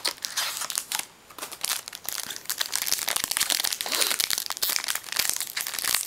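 Trading-card pack wrapper crinkling as it is handled and opened, with a short lull about a second in and then steady crinkling to the end.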